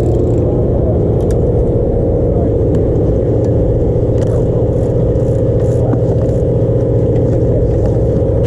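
A sportfishing boat's engine running steadily, a deep even hum, with a few faint light clicks over it.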